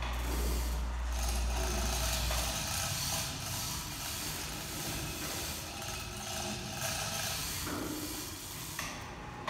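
Overhead chain hoist lifting an aluminum boat hull. A low steady hum cuts off about two and a half seconds in, and chain and rigging rattle and click throughout.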